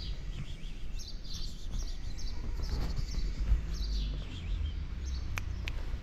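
Small birds chirping repeatedly over a low, steady outdoor rumble, with two sharp clicks about five and a half seconds in.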